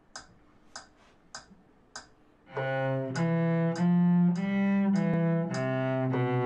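Metronome ticking at about 100 beats a minute; after four ticks an acoustic cello comes in about two and a half seconds in, bowing a slow line of held notes while the ticks go on under the playing.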